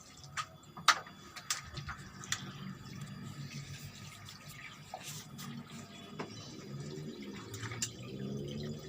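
Water running and sloshing in a washing machine, with a few sharp clicks and knocks, the loudest about a second in.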